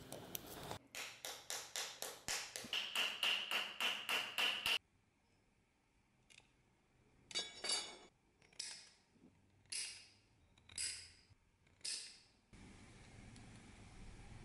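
Thin brass sheet being cut with hand shears: about six separate snips, roughly a second apart, in the second half. Before them comes a quick run of rasping strokes, about four a second, with a ringing tone partway through.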